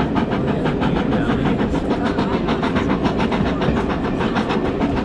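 Jacobite steam train running, heard from inside a carriage with the window half open: a loud, steady rumble with a fast, regular beat.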